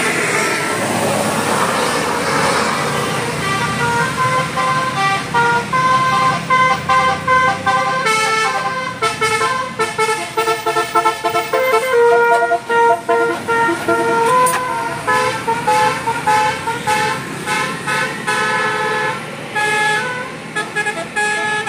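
A bus's Basuri-style telolet horn, an electric multi-trumpet horn, plays a quick melody of short stepped notes. Vehicle engine and road noise is heard at the start, and the tune begins a few seconds in.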